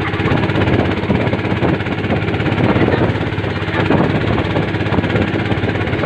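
Small wooden boat's engine running steadily under way, with water rushing and splashing along the hull in choppy sea.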